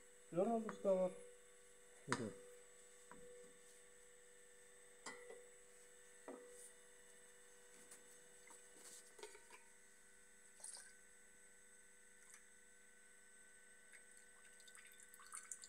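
Steady electrical hum under light knocks and clicks as 2K filler primer is stirred and handled in a mixing bucket, with one sharp knock about two seconds in; near the end thinner trickles faintly into the bucket.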